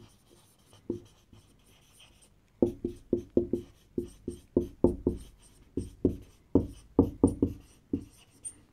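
Marker pen writing on a whiteboard: a run of short, quick strokes, sparse for the first couple of seconds, then close together from about two and a half seconds in until near the end.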